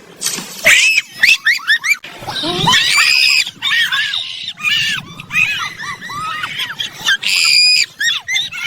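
Many short, high-pitched squealing calls overlapping in quick succession, with two longer, harsher squeals about three seconds and seven and a half seconds in.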